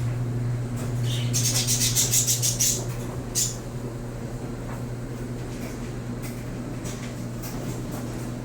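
Washing machine running with a steady low hum, loud enough to be heard across the kitchen. About a second in there is a quick run of light rattling clicks lasting over a second, then a single click.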